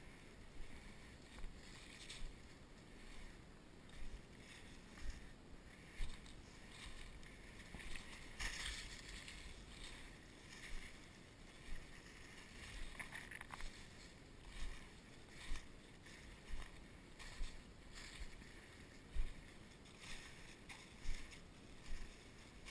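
Footsteps crunching and swishing through dry leaf litter at a steady walking pace, roughly one step every second.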